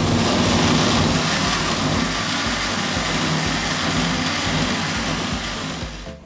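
Electric mixer grinder running steadily at full speed, its blades churning mango pieces and thickened milk into a paste in a stainless steel jar. The motor stops abruptly near the end.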